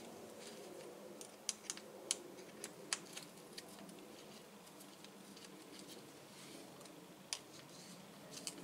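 Small metal hex key clicking against and turning the clamp bolts of a bicycle's handlebar stem: a run of sharp clicks in the first few seconds, then a couple more near the end.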